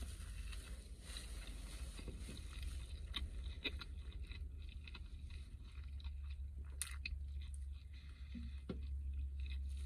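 A man chewing a mouthful of fried meat pie (belyash), with scattered soft clicks and smacks, over a steady low hum in a car cabin.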